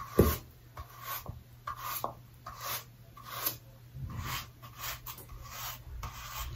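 Bristle hairbrush rasping through short, damp hair in repeated brush strokes, roughly one every half second.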